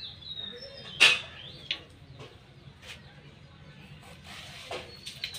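Short, sharp scraping cuts as a taro corm is pared against the fixed blade of a boti. The loudest stroke comes about a second in, followed by a few fainter ones.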